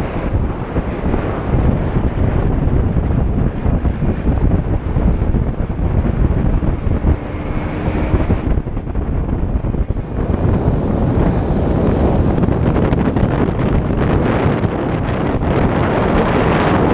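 Strong wind buffeting the microphone of a moving motorcycle, with the motorcycle's engine and road noise underneath. It grows louder about ten seconds in.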